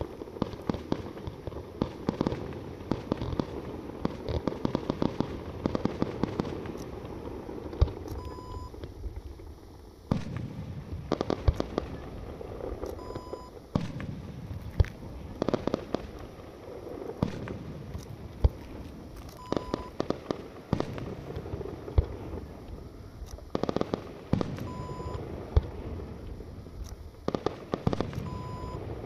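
Fireworks display: repeated bangs of shell bursts and launches with crackling, irregular and frequent, over a steady low rumble. A short high beep recurs about every five seconds.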